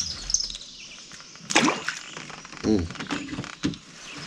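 Small birds chirping, with a sharp knock about one and a half seconds in and a few softer knocks and handling noises after it.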